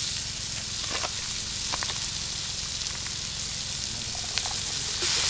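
Food frying in a pan on a barbecue grill: a steady sizzle with a few faint ticks scattered through it.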